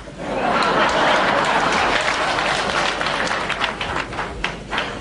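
Audience applauding, swelling about half a second in and thinning to scattered claps near the end.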